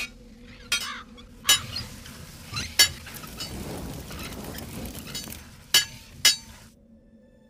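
Blacksmith's forge work: several sharp clinks of a hammer on metal, with the crackle and hiss of a coal forge fire between them. The last two strikes, about half a second apart near the end, ring briefly.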